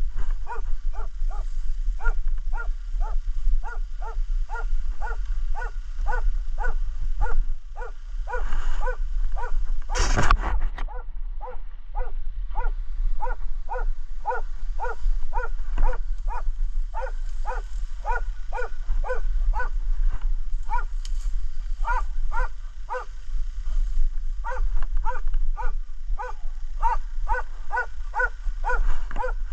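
Istrian coarse-haired hound barking over and over, about two barks a second with a couple of short breaks, baying at a wild boar it has found. A brief loud noise cuts across the barking about ten seconds in.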